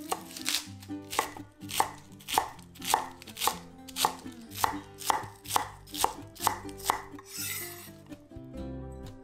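Chef's knife chopping through iceberg lettuce onto a wooden cutting board, in crisp, even strokes about two a second, with a brief swishing noise near the end.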